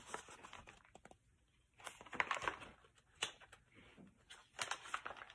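Faint rustling and flicking of a paperback book's paper pages as they are turned, in a few short rustles with quiet gaps between.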